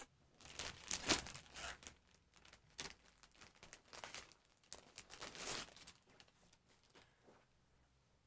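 Plastic clothing bag crinkling and rustling as a folded T-shirt is handled and slid out of it: a run of irregular rustles, loudest about a second in, dying away after about six seconds.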